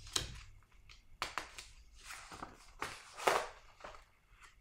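Paper rustling as pages of a kit instruction manual are turned and handled: a string of short, irregular swishes, the loudest about three seconds in.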